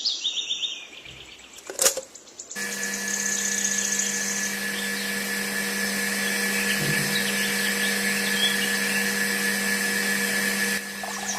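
A small handheld power tool runs at a steady speed, starting about two and a half seconds in and stopping shortly before the end.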